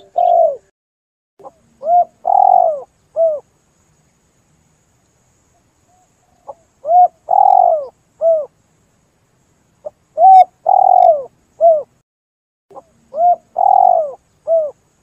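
Spotted dove (tekukur) cooing: four phrases a few seconds apart, each a short coo, a longer slurred coo and a short final coo.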